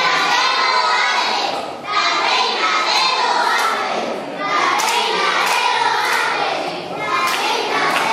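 A group of children singing together in phrases, with a few sharp knocks in the second half.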